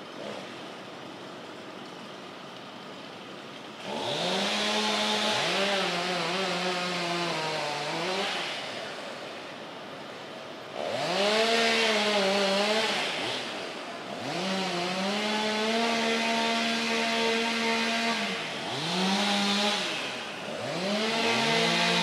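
Chainsaw engine idling, then revved up about four seconds in and cutting into wood. Its note sags and wavers under load and drops back toward idle between cuts, about five times in all.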